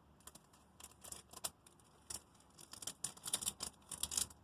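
Foil Pokémon booster pack being opened and handled: a run of short, crisp crinkles and crackles from the wrapper, growing denser and louder over the last second and a half.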